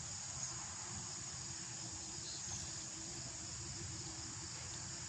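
Steady high-pitched chorus of crickets, with a faint low rumble underneath.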